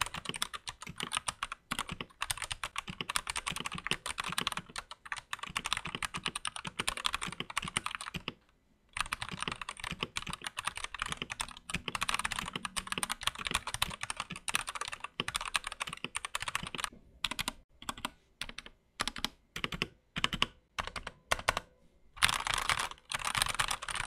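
Stock Thunderobot K104 full-size mechanical keyboard being typed on: linear red switches in a tray-mounted plastic case with PBT double-shot cherry-profile keycaps. Fast, continuous key clacks break off briefly about a third of the way in, then come in short separate bursts before fast typing resumes near the end. The sound is plasticky and hollow, with some rattling from the stabilizers.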